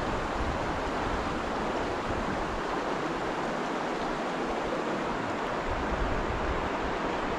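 Mountain river rushing steadily through a riffle, a continuous even hiss of running water.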